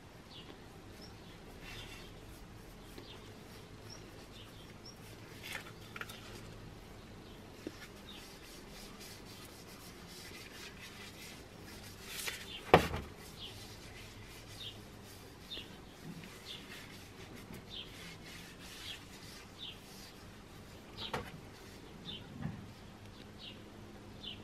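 Rubber-gloved hands rubbing a finish into a wooden cleaver handle: soft rubbing with many short, high squeaks of glove on wood, and one sharp knock about halfway through.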